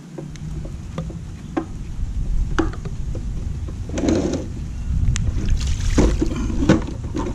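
Hard plastic clicks and knocks from a Polaris 280 pool cleaner's body being handled and turned over, with a denser clatter around four seconds in and again near six seconds, over a low steady rumble.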